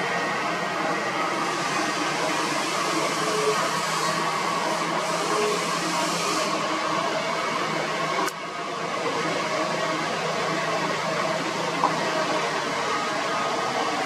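Kobelco SK200 excavator's diesel engine running steadily under load as it digs soil, with a single sharp click about eight seconds in.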